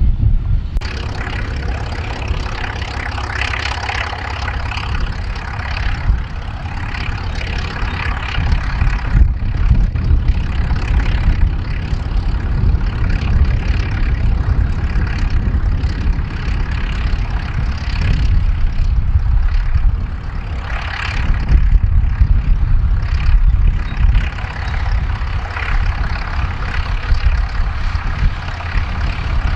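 Ford tractors' six-cylinder diesel engines working under load as they pull tillage implements across a field: a deep, steady engine drone that swells and eases several times as the tractors pass.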